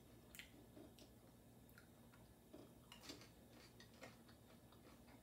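Faint, irregular crunchy clicks of someone chewing caramel popcorn.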